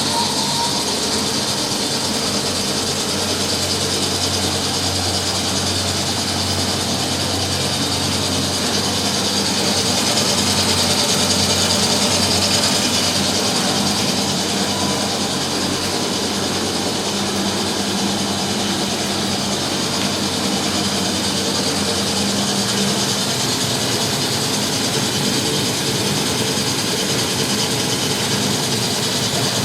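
Three washing machines (a Miele, a Euronova and a Sparmeister) spinning at once, a steady loud mechanical hum and whir that swells a little about ten seconds in. Through it runs a rubbing squeal from the Sparmeister's V-belt, which squeals quite a lot.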